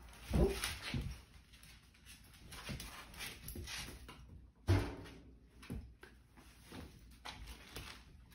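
Husky and sheprador puppy scuffling and tussling on a tile floor: a run of short knocks and scrabbles, with two louder thumps about half a second in and just under five seconds in.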